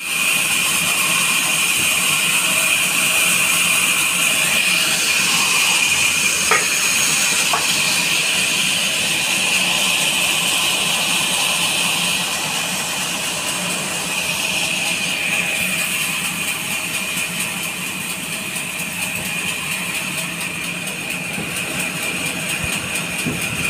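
Large sawmill band saw running and cutting through a neem log, a steady high-pitched hiss and whine that eases off a little about halfway through.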